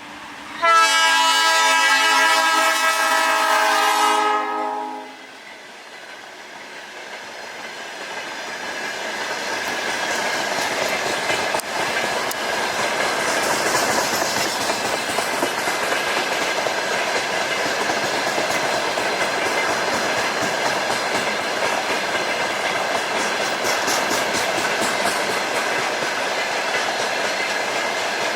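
GE C36-7i diesel locomotive's air horn sounding one long blast of about four seconds, a chord of several tones. Then the train of empty freight wagons approaches and runs past, a rumble that grows over several seconds and then holds steady, with wheels clicking over rail joints.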